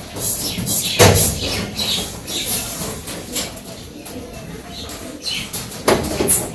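A metal wok of dry-roasted cumin seeds is lifted off a gas burner with a knock about a second in, then tipped so the seeds scrape and rattle out onto a plate. A second knock comes near the end as the pan goes back on the stove.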